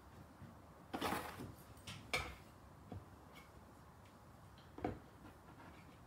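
Faint handling sounds of pencil-marking on a cabinet door: a short scrape about a second in, then a few light clicks and knocks as the pencil and marking gadget are moved on the board.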